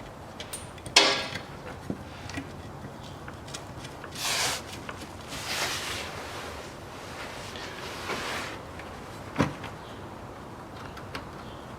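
Hand work on nuts and bolts: a sharp knock about a second in, then several short scraping sounds and a click as nuts are swapped and threaded back on.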